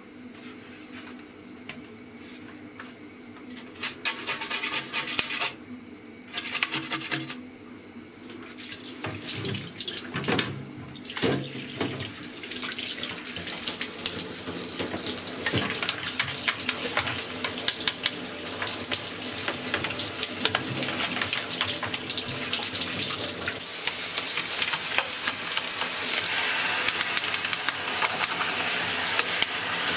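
Water spraying from a handheld shower head and splashing off a hollow black plastic cassette-deck case in a bathtub. It comes in two short spurts about four and six seconds in, then runs steadily, growing louder near the end.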